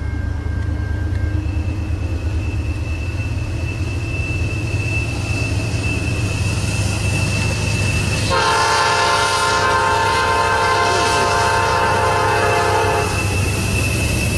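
Norfolk Southern diesel freight locomotive approaching, its low engine rumble growing louder. About eight seconds in, its air horn sounds one long blast of several notes together for about five seconds, and it starts sounding again near the end.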